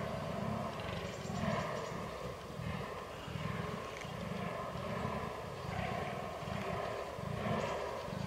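Fallow deer buck giving its rutting groan: a run of deep, repeated grunts at about two a second.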